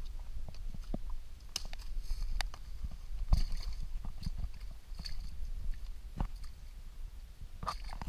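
Footsteps in boots crunching and snapping through dry leaf litter, twigs and mud: irregular crunches about once or twice a second, over a steady low rumble.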